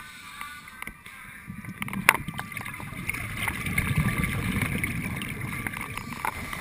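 Scuba diver's regulator exhaust heard underwater: a low bubbling rumble that builds from about a second and a half in, with a sharp knock about two seconds in.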